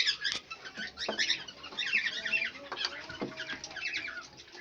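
Small birds chirping rapidly and continuously, with a few sharp knocks among them.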